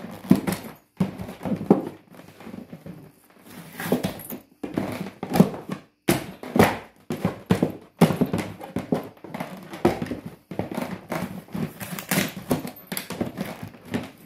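Hard-shell plastic suitcase being crushed under high-heeled leather boots: an irregular run of cracks, creaks and crunches as the shell buckles, with knocks of the heels on it.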